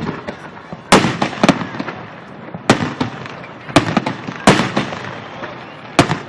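Fireworks salute: aerial shells bursting overhead in about seven sharp bangs, roughly one a second and irregularly spaced, each trailing off in a rolling echo.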